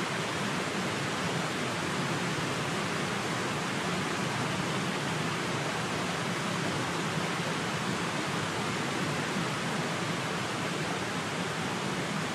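Steady, even rushing noise with no clear pitch and no breaks or events.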